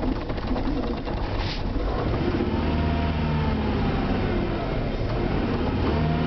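Vehicle engine on a hard start: rough, pulsing running that settles into an engine note rising and falling in pitch twice, as if revved.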